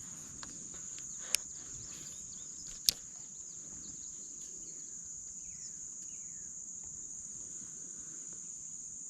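Steady, high-pitched chorus of insects, with two sharp clicks about a second and a half apart near the start.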